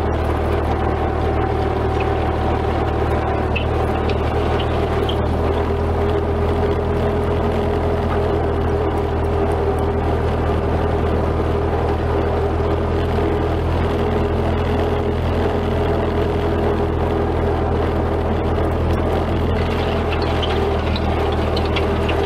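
A 1944 Ford 2N tractor's four-cylinder flathead engine running steadily, heard from the driver's seat.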